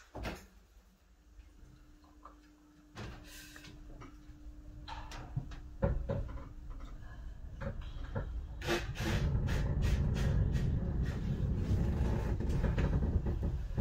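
Dresden's cable-hauled funicular car, with knocks and clunks over a steady low hum. From about nine seconds in, a low rumble swells and stays, as the car gets under way.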